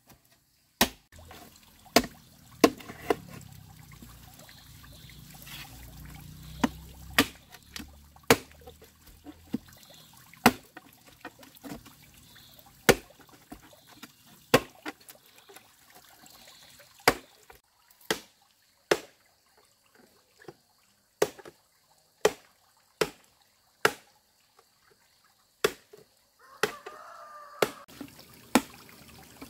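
Machete striking and splitting a green bamboo pole: sharp knocks, irregular, about one a second.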